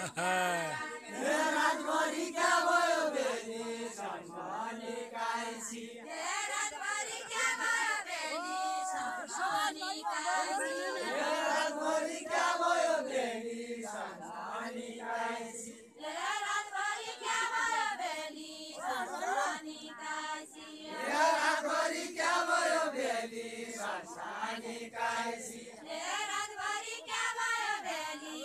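Deuda folk song of far-western Nepal sung unaccompanied by a group of villagers in unison, in long repeated phrases with short breaks between them.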